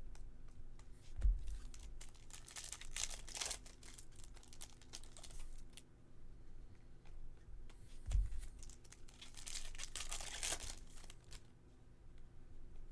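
Baseball card packs being opened and the cards handled: wrappers crinkling and tearing, and cards rustling and clicking, with two soft thumps.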